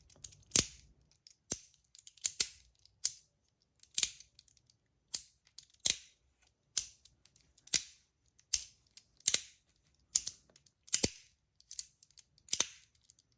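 Stainless steel magnetic push fidget snapping shut over and over as it is pushed like a syringe and rotated. Each snap is a sharp metal click, a little more than one a second, some of them doubled.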